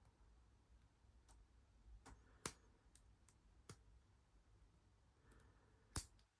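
Scattered small metallic clicks, about half a dozen at irregular intervals, from a lock pick and tension wrench working the pins of a small cheap padlock; the sharpest click comes near the end.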